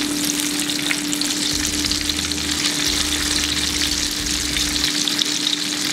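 Slices of scrapple shallow-frying in oil in a pan: a steady sizzle with scattered small crackles.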